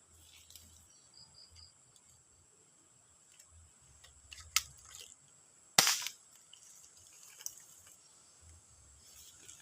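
Spring-powered airsoft gun firing one sharp shot a little past halfway, with a lighter click about a second before it and a faint click after.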